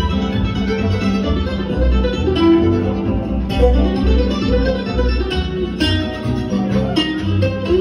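Acoustic string band playing live: fiddle, mandolin, guitar and upright bass, with the bass keeping a steady beat under the picked notes.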